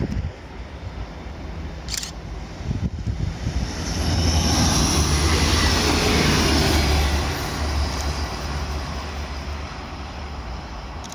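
A vlexx regional passenger train passing close by on the rails with a low rumble and rushing noise. The noise swells to its loudest about four to seven seconds in, then fades as the train moves away.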